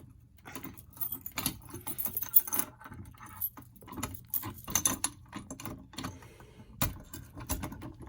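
Keys jangling and clicking as they are handled, an irregular run of small metallic rattles with a sharper click near the end.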